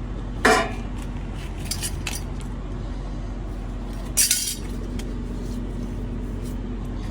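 Freightliner Cascadia truck's diesel engine idling steadily, on a truck with an exhaust leak. Two short, sharp hissing bursts stand out, about half a second in and again about four seconds in, with a few light ticks between them.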